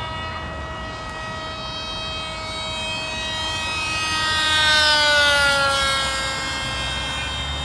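Brushless electric RC plane's motor and propeller whining as it flies past. It gets louder to a peak about five seconds in, and the pitch falls as it passes.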